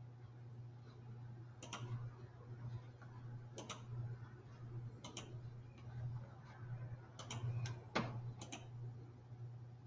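Faint computer mouse clicks, a few scattered ones, some in quick pairs, as windows are switched, over a steady low hum.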